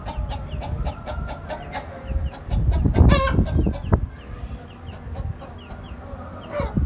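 Aseel cross chicks peeping over and over in short, high, falling notes, with a hen clucking among them. A louder fowl call cuts in about three seconds in.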